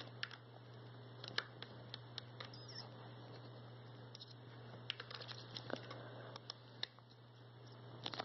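Faint, scattered light taps and clicks over a steady low hum.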